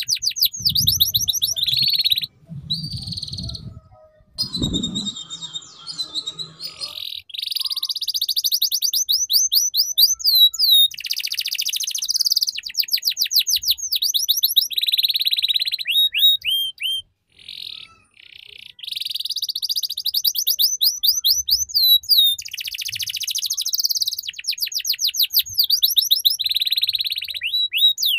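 Domestic canary singing a long song of fast trills, many quick repeated chirps running together, used as a master song to teach young canaries the rapid 'ngeriwik' trill. There is a short break a little past halfway, and a low rumble under the first few seconds.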